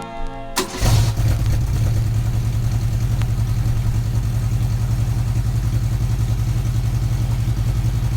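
Restored Renault 810-05 four-cylinder petrol engine running steadily with an even pulse, coming in about a second in as the music stops.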